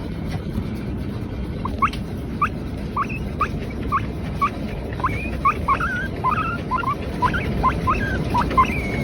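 Teddy guinea pig calling in a run of short rising squeaks, starting about two seconds in at roughly two a second and coming faster toward the end, over a steady low rumble.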